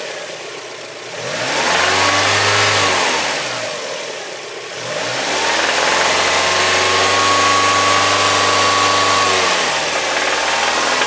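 Mazda MX-5 four-cylinder engine revved up from idle twice, a short rev and then a longer one held for several seconds before dropping back. A clatter like a tin can tapping comes in at mid revs, though the engine runs fine at idle and again above about 3000 rpm.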